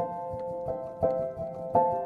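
Music: sustained keyboard chords struck about every three quarters of a second.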